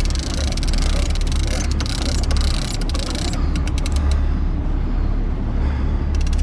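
Sport-fishing boat's engine running with a deep, steady drone, under a hiss of wind and water that eases about halfway through.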